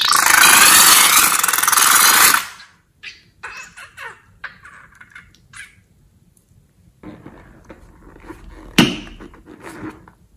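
Rubber balloon squirting out its last green liquid and air through the neck into a glass bowl, a loud rapid spluttering for about two and a half seconds. Softer rubbery squeezing and handling sounds follow, with one sharp snap near the end.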